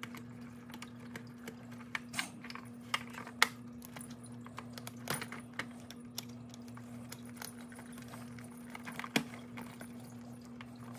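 Screwdriver turning a small screw into the plastic motor housing of a Big Mouth Billy Bass singing fish, with scattered light clicks and taps of the plastic parts over a faint steady hum.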